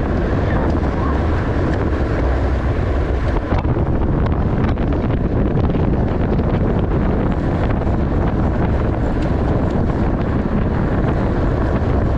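Steady wind rushing over the microphone of a racing cyclist's camera at race speed, heaviest in the low end.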